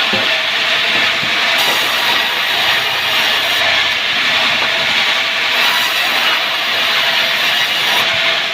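Sawmill wood saw running through timber, a loud, steady, continuous noise without let-up.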